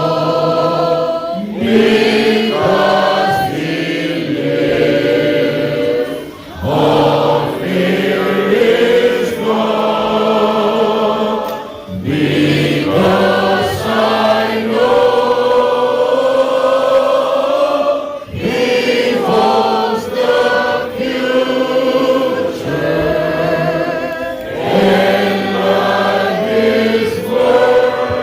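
Group of voices singing a hymn together, in long sung lines with brief pauses between phrases.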